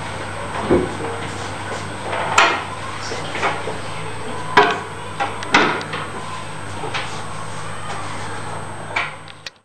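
Kitchen clatter: about seven scattered knocks and clinks of dishes and cupboard doors over a steady low hum, then the sound cuts out at once near the end.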